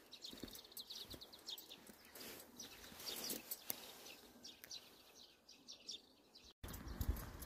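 Faint footsteps crunching over dry soil and torn plastic mulch film, with a few short bird chirps. Near the end the sound drops out briefly and a louder low rumble begins.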